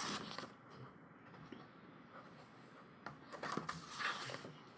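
Pages of a thick photobook being turned by hand: paper rustling and sliding, briefly at the start and again for a second or so near the end.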